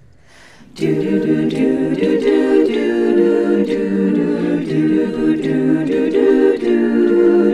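Women's a cappella chorus singing sustained chords in close harmony, with no words made out, coming in about a second in after a faint start.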